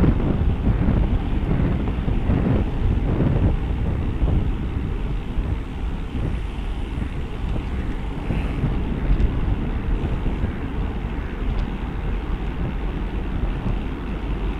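Wind rushing over the microphone of a camera on a road bicycle riding at speed in a racing pack: a steady low rumbling rush.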